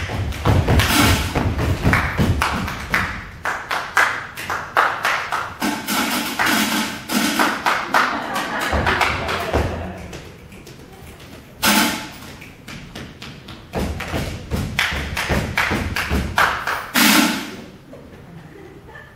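Body percussion by several performers: rhythmic stomping, tapping and clapping on a wooden stage, with two louder sharp bursts in the second half.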